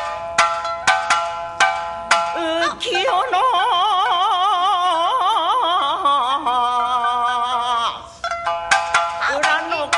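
Rōkyoku performance: a run of sharp shamisen plucks, then a long melismatic sung phrase from the female rōkyoku singer with wide, wavering vibrato, and the shamisen plucking again near the end.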